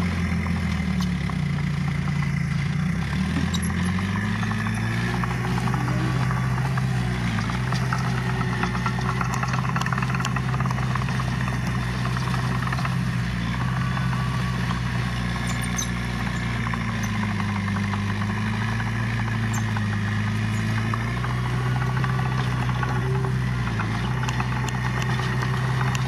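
Diesel engine of earthmoving machinery running steadily, its speed dipping about two to four seconds in and picking up again, with smaller shifts in pitch later on.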